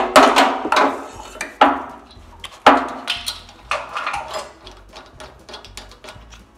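Sharp metallic clinks and clanks with short ringing: four loud ones in the first four seconds, then lighter ticks. They come from steel hydraulic hose fittings being handled and threaded onto a tractor loader's control valve.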